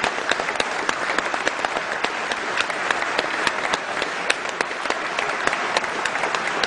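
Audience applauding steadily, many hands clapping at once in a dense stream of claps.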